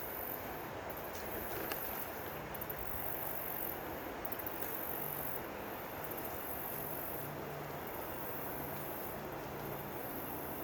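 Crickets trilling in high stretches that start and stop, over a steady background hiss.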